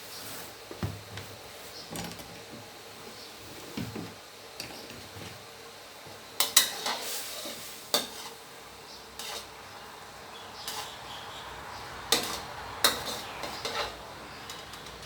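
A utensil stirring in a cooking pot and clinking against it, with a handful of sharp knocks: a cluster about six and a half seconds in and another between twelve and fourteen seconds.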